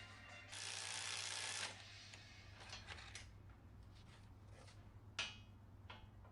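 Coil spring compressors being worked on a truck coil spring: a scraping rasp about half a second in, then scattered metal clicks and a sharp click about five seconds in, over a low steady hum.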